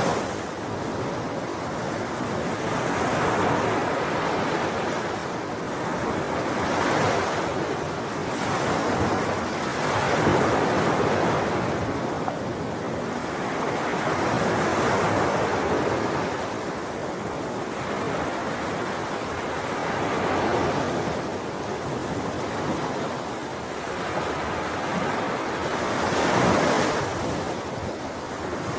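Ocean waves breaking and washing on a shore in a steady rush, swelling with each wave every few seconds, the loudest surge near the end.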